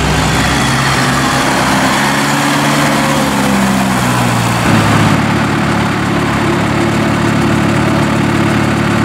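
John Deere 5101E tractor's four-cylinder turbo diesel engine running while the tractor moves, its pitch drifting slightly. About halfway through the sound changes abruptly to a steady diesel idle.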